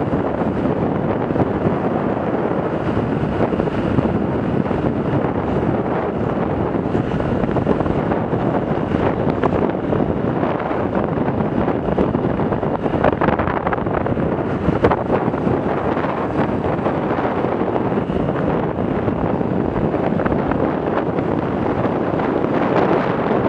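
Wind rushing over the camera microphone on a moving motorcycle, a steady loud roar with the Yamaha YBR 125's single-cylinder engine and road noise running underneath.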